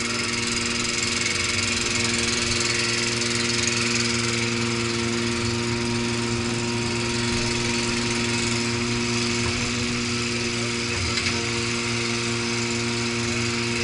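Truck engine running steadily at a constant speed while the loader crane works.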